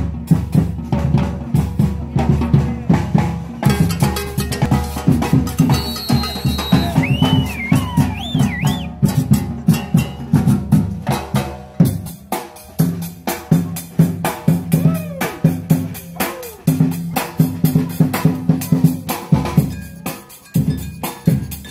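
Live drumming by a band of shoulder-slung marching bass drums and snare drums, keeping a fast, steady beat. The low drums drop out briefly about twelve seconds in and again around sixteen seconds.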